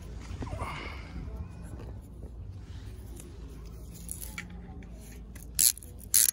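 Two short, sharp plastic clicks near the end, about half a second apart, as a plastic propeller disc is fitted onto a toy spinning-top launcher, over a faint low outdoor rumble.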